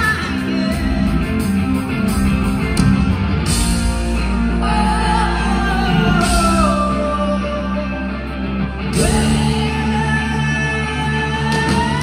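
Live rock band playing in an arena, recorded from the audience: a high male lead voice sings long sliding notes over electric guitar, bass and drums, with the hall's reverberation.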